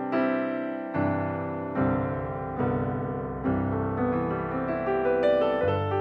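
Background music: a slow keyboard piece in a piano sound, with notes and chords struck a little more than once a second, each ringing and fading.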